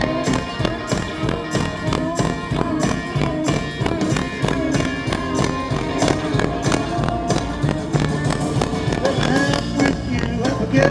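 Blues-rock band playing an instrumental passage without vocals: a steady drum beat under guitar lines, with notes bending in pitch near the end.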